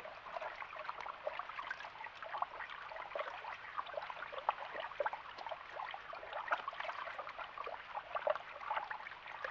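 Tap water running into a sink and splashing over hands being washed under the stream, a steady patter of small splashes.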